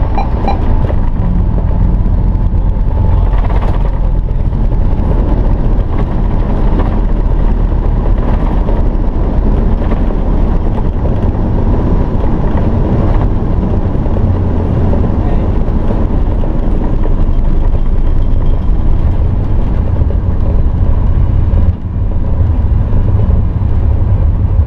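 Sukhoi Superjet 100 cockpit during the landing rollout: a loud, steady low rumble of the engines and the wheels on the runway as the jet slows.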